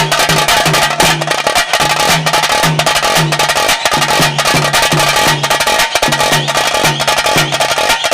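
Taase drums played in the fast, dense Pili Nalike tiger-dance rhythm: rapid sharp strokes over a deeper beat a little over twice a second.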